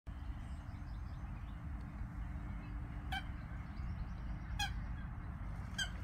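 A goose honking three times in the second half, each honk short, over a steady low rumble.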